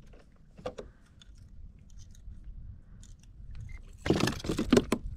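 Faint clicks and knocks of handling on a fishing kayak, then, about four seconds in, a loud fast run of knocks and rattles.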